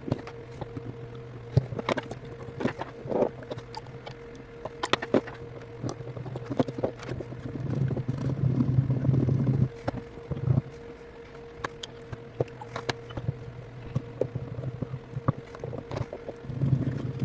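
Small tool scraping, rubbing and clicking against an iPhone 8's housing while old battery adhesive is cleaned off, with a steadier stretch of rubbing about eight seconds in. A steady low electrical hum sits underneath.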